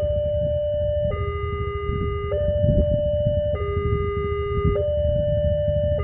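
Railway level-crossing electronic warning alarm sounding a two-tone signal, switching between a higher and a lower tone about every second, while the crossing is closed for an approaching train. A low rumble runs underneath.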